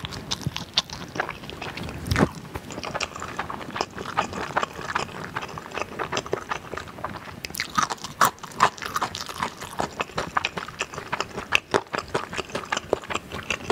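A person chewing food close to the microphone: a run of small, irregular wet clicks and crunches, busiest a little past the middle.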